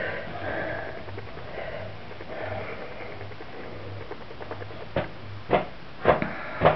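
Quiet room tone, then four short sniffs close to the microphone in the last two seconds, about half a second apart.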